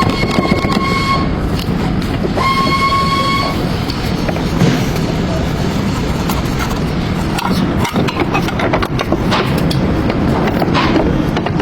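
Steady road and running noise from a moving car, with scattered faint clicks. A high steady tone sounds twice in the first few seconds, each time for about a second.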